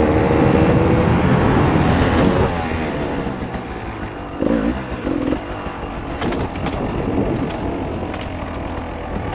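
Beta RR 300 two-stroke enduro bike engine revving under throttle. It is loud and climbing in pitch at first, eases off about two and a half seconds in, and then runs in shorter uneven bursts with light clattering ticks over the rough trail.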